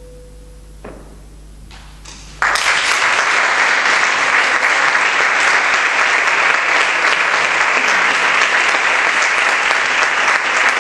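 The last vibraphone note rings out and fades away, and after about two seconds of quiet an audience suddenly breaks into steady applause.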